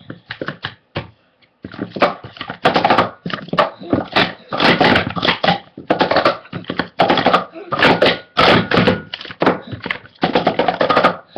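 Speed Stacks plastic sport-stacking cups clattering rapidly as they are stacked up and brought down in quick bursts of clacks, with short pauses between sequences: a full timed cycle run of about eleven seconds.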